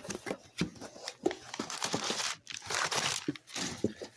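Packing paper crinkling and crumpling as it is handled and pulled away from a shipping box, in irregular crackles and rustles.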